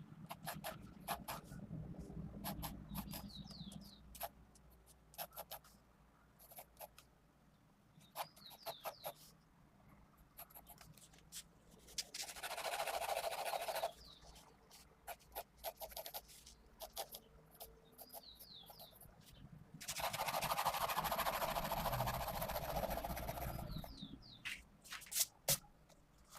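Pencil lead on paper from a Pentel GraphGear 500 0.5 mm mechanical pencil with 2B lead: many quick short strokes and ticks, plus two longer scratchy shading passages of about two and four seconds, about halfway through and again after two-thirds.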